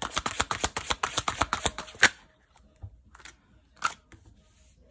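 A tarot deck being shuffled by hand: rapid card clicks, about nine a second, ending in a sharp snap about two seconds in. After that come a couple of soft slaps as cards are laid down on a cloth.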